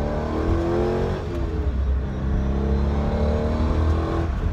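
Car engine heard from inside the cabin while accelerating, over a steady low rumble. Its pitch climbs, dips about a second in, and climbs again.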